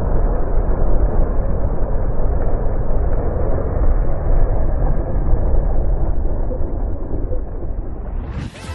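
Match-head-fuelled rocket motor of a homemade model plane burning: a loud, steady, muffled rushing noise that eases off near the end.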